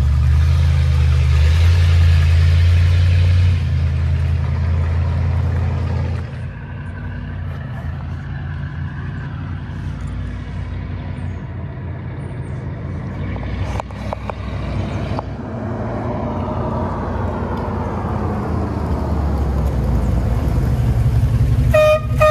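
1989 Dodge half-ton pickup's engine pulling away from a stop as its rebuilt automatic transmission upshifts: three shifts, taking off in first gear as it should. The engine sound drops sharply about six seconds in and builds again later with a rising pitch, and a horn toots briefly near the end.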